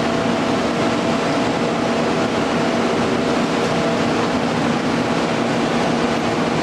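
Steady machinery hum: an even whirring noise with a constant low tone and a few fainter higher tones, unchanging throughout.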